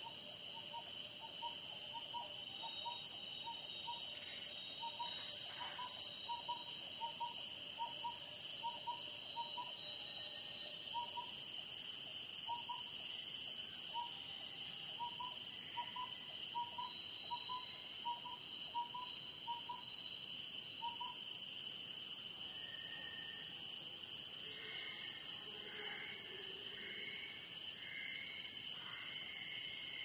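Borneo tropical rainforest ambience: a continuous high insect drone at two pitches, typical of cicadas and crickets. Over it, a bird repeats a short call note about twice a second for roughly the first twenty seconds. Other brief, higher bird calls follow near the end.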